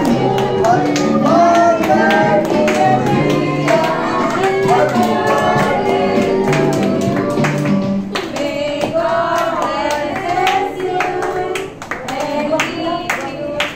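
A song playing: singing over instruments with a steady percussive beat.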